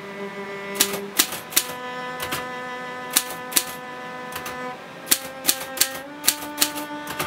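Typewriter keys striking the paper one at a time, about a dozen sharp, unevenly spaced clacks in small groups, over sustained bowed-string music.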